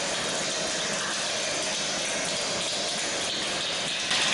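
A large group of children imitating rainfall with body percussion: a steady rain-like hiss that gets louder about four seconds in as sharper taps join in.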